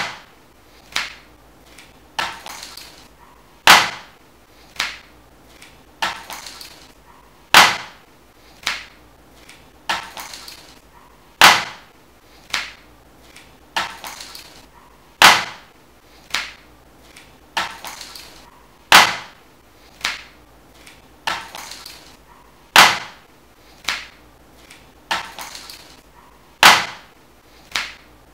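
Sharp clicks and knocks repeating in a fixed loop, about one a second, with a heavier strike opening each cycle about every four seconds and a short rattle after some of the lighter hits.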